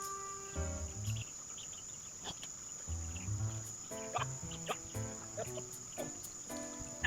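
Steady, high-pitched insect chorus of crickets, with background music of low stepping notes under it and a few short chirps.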